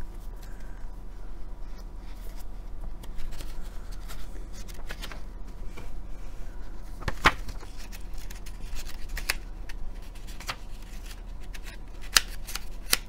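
Pages of a digest-size paper magazine being leafed through and handled: soft paper rustles with scattered sharp page snaps and ticks, the loudest about seven seconds in and twice near the end, over a low steady hum.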